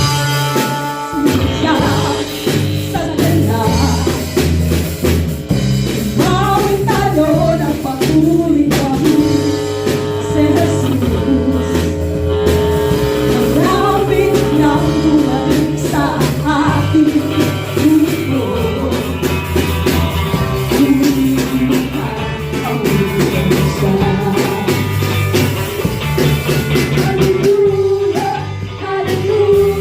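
A live band playing a rock-style worship song on drum kit and guitar, with a voice singing the melody from about a second and a half in.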